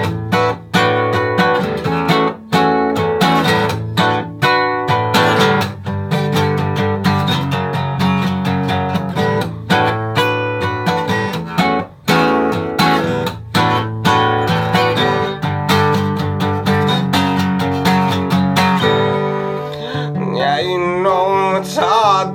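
Solo acoustic guitar strummed in a steady rhythm, an instrumental break in a song. A singing voice comes in near the end.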